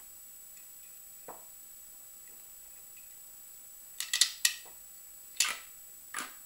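Small hard parts of a paintball marker clicking and knocking as they are handled: a faint tap about a second in, a quick cluster of sharp clicks about four seconds in, then two single knocks near the end.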